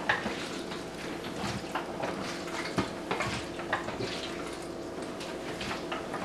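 Liquid stabilizer sloshing inside a hand-held film developing tank as it is turned over and over for agitation, with light knocks of the tank at each turn.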